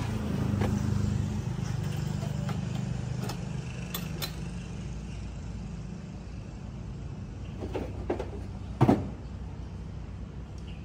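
Steady low engine-like hum, a little louder in the first two seconds, under the scattered clicks and clinks of coffee equipment being handled at the cart, with one sharp knock about nine seconds in.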